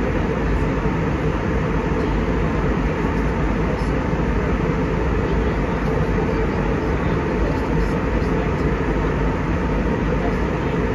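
Airbus A320 cabin noise in flight: a steady low rumble of engines and rushing airflow, heard inside the cabin.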